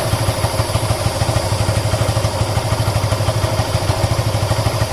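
Yamaha FZ's single-cylinder engine idling steadily in first gear, turning the rear wheel and chain slowly, with an even pulsing beat.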